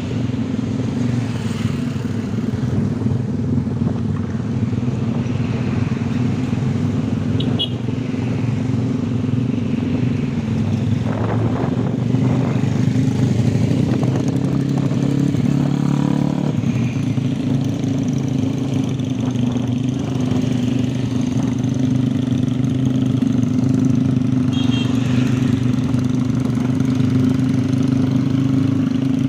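Honda Tiger motorcycle's single-cylinder four-stroke engine running steadily, its note holding fairly even with a slight shift in pitch about halfway through.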